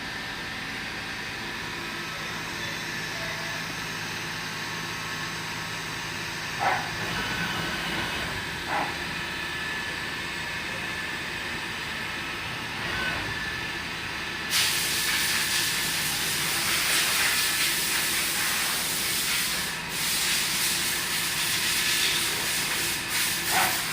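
Mazak VTC-300C CNC vertical mill running, a steady hum with several held tones and two short knocks. About two-thirds of the way through, a loud, even hiss starts suddenly and continues.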